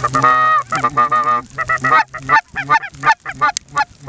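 Snow geese calling: a run of high, nasal honking calls, the later ones short and coming in quick succession.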